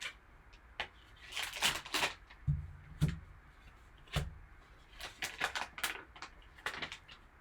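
A trading-card value pack and its packaging being handled and opened on a table: bursts of rustling and crinkling, with a few light knocks about two and a half, three and four seconds in.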